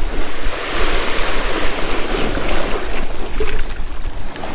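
Sea surf washing over shore rocks in a gale, a steady rushing of water, with wind rumbling on the microphone.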